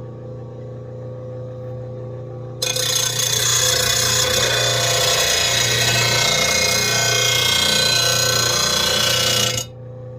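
RBG-712 blade sharpener's motor running with a steady hum. About two and a half seconds in, a steel lawn mower blade is run across the spinning grinding wheel, giving a loud grinding noise for about seven seconds. The grinding stops abruptly when the blade is lifted off, and the motor hums on.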